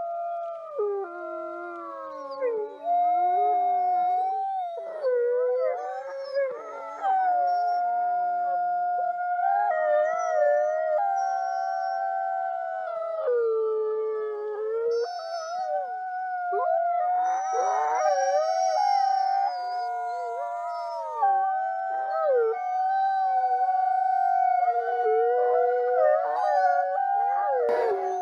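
A pack of wolves howling in chorus: several long, overlapping howls at different pitches, held and gliding up and down. A short click comes near the end.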